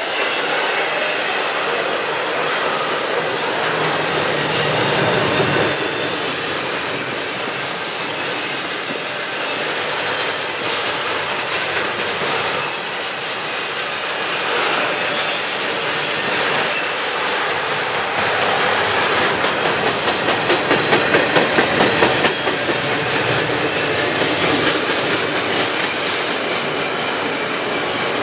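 Double-stack intermodal well cars of a long freight train rolling past at speed: a steady rumble and rattle of steel wheels on rail, with a quick run of rhythmic clicks over the rail about two-thirds of the way through.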